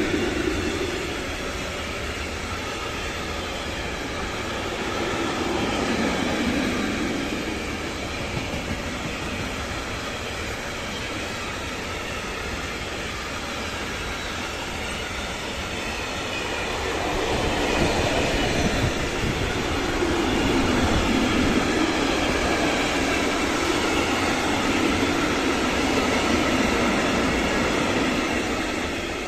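Freight train of tank wagons rolling past on the rails: continuous wheel-on-rail noise that swells and eases as the wagons go by, dropping away at the very end as the last wagon passes.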